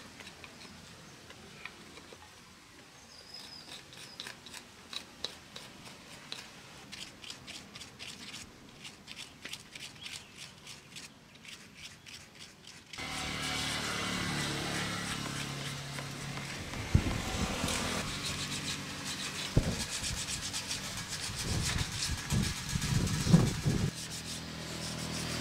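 Hand carving of a small wooden canoe hull: a chisel, then a small knife, scraping and paring shavings off the wood in short strokes, about two a second in the first half. About halfway a louder steady background hum comes in, with a few heavier knocks near the end.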